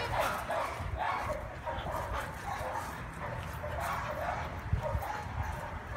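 Dogs barking, short calls coming in quick, irregular runs.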